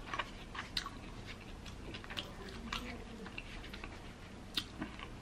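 Quiet close-miked chewing of a mouthful of chicken burrito bowl, with scattered light clicks of a fork picking through the bowl and one sharper click about four and a half seconds in.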